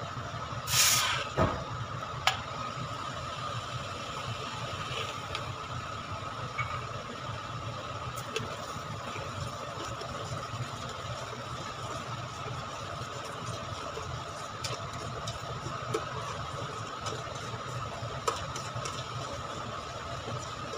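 A steel spoon stirs sugar and water in a stainless steel kadai, with a few light clinks of spoon on steel, over a steady hum. A short rushing noise comes about a second in.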